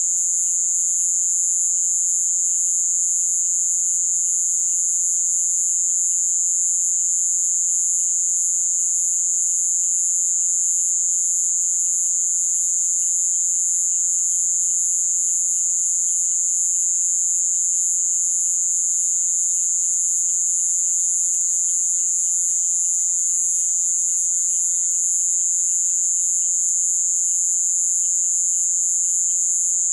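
Nocturnal rainforest insect chorus: a steady, high-pitched drone that never breaks, with faint frog calls scattered beneath it.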